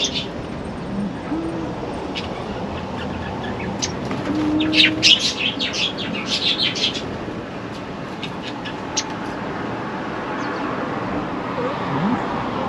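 Budgerigars chirping and twittering in quick high bursts. The busiest flurry comes about five to seven seconds in, with scattered single chirps before and after.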